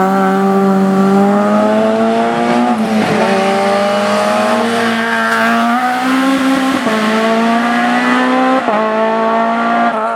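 Race car engine running hard under load on a hill-climb, its pitch shifting and breaking briefly about every two seconds at gear changes.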